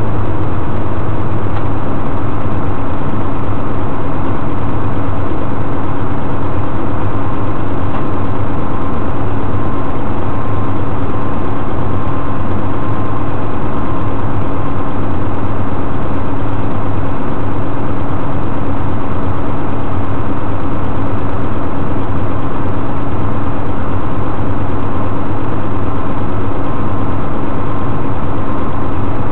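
Tow truck engine idling steadily, a loud even drone with a low hum and a faint steady whine over it.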